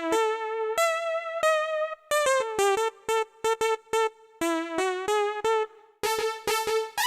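Cumbia synthesizer keyboard playing a solo lead melody, one note at a time with short gaps and no drums. The tone turns brighter about six seconds in.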